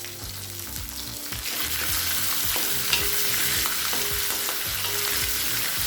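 Tempering of green chillies, ginger, cashews, curry leaves, dals and mustard seeds sizzling in hot oil in a kadai, a steady hissing fry that grows louder about a second and a half in.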